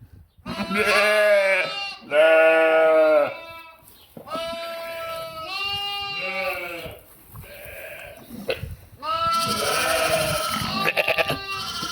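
Sheep and lambs bleating: about half a dozen separate calls, each roughly a second long, with a wavering pitch and sometimes overlapping.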